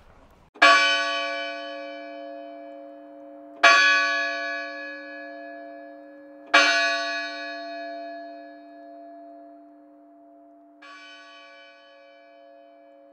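A church bell struck four times, about three seconds apart. Each stroke rings on and fades slowly, and the fourth, a little before the end, is softer.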